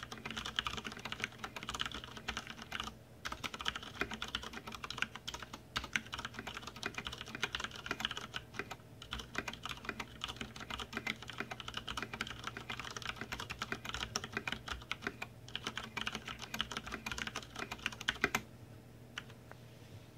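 Fast typing, around 75 words a minute, on an iKBC F-104 mechanical keyboard with Cherry MX Brown switches and thick PBT keycaps: a dense run of keystroke clacks with a few brief pauses. The typing ends with one louder stroke a little before the end.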